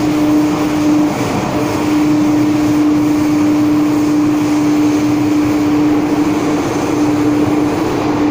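Interior running noise of a Hong Kong MTR M-Train carriage: a loud, steady rumble and rush with a steady hum through it that drops out briefly a couple of times.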